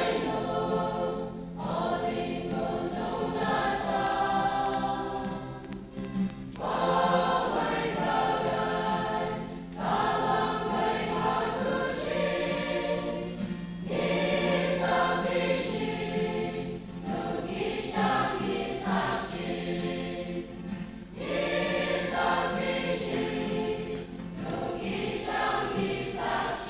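Mixed church choir of men and women singing together in phrases of a few seconds, with short breaks between phrases and a steady low hum underneath.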